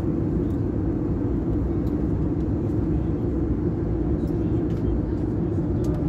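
Airbus A321 cabin noise during the descent: the engines and airflow make a steady drone with a strong low hum. A few faint clicks sound over it.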